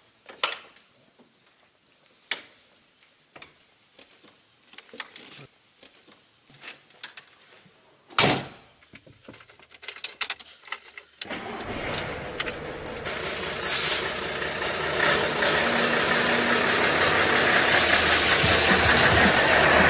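Clicks and rustles from the cab, a loud knock about eight seconds in, then the Mercedes-Benz MK 1222 S truck's diesel engine starting on the key a little past eleven seconds and settling into a steady idle. There is a short hiss around fourteen seconds.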